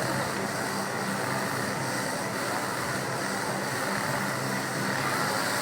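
Chainsaw engine running steadily, a continuous even drone with no revving.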